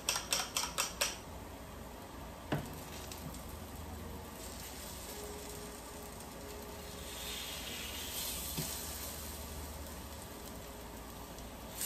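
A spoon clicking quickly against a bowl as two eggs are beaten, stopping about a second in; then ripe plantain slices sizzling in a frying pan in a little olive oil, with a single tap of the fork on the pan shortly after. The sizzle grows louder and brighter about two-thirds of the way through as the slices are turned.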